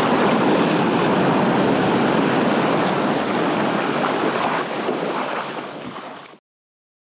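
Ocean surf breaking and rushing around a kayak hull: a loud, steady wash of water that eases off and then cuts off suddenly a little over six seconds in.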